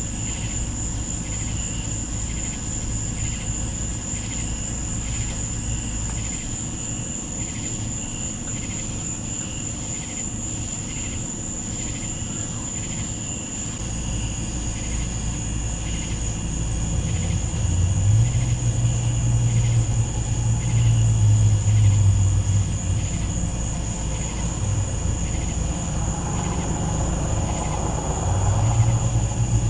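Night insects calling: a steady high-pitched trill with pulsing chirps about once a second. Under it a low rumbling hum swells up twice, in the second half and again near the end.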